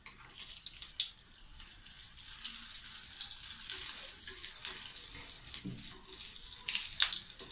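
Breaded chicken cutlets sizzling as they shallow-fry in hot coconut oil, with a few sharp clicks and scrapes of a metal spatula against the pan as they are turned over once browned.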